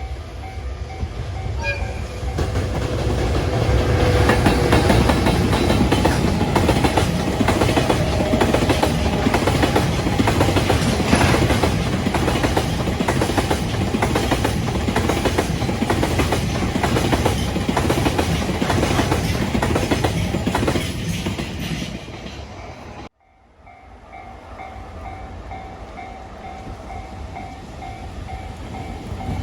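Freight train passing over a level crossing, its wheels clattering in a steady rhythm over the rail joints, with the crossing's warning bell ringing. The sound cuts off abruptly about 23 seconds in, then the crossing bell starts again and a train's rumble builds.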